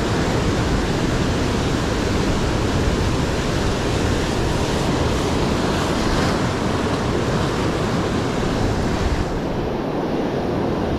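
Rough sea surf breaking on a rocky shore: a steady, unbroken rush of water. The highest hiss thins out near the end.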